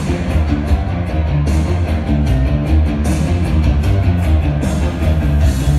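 Loud rock music with electric guitar and a heavy, steady beat, played through the venue's speakers as a wrestler's entrance theme.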